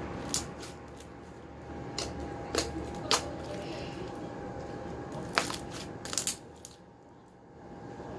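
Slime being kneaded and stretched by hand, giving a scatter of sharp, wet click-like pops, about seven of them, as air pockets burst.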